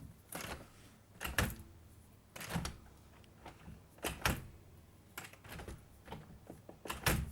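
A series of irregular knocks and thuds, about seven in all, some in quick pairs, the loudest about a second in, around four seconds in and near the end.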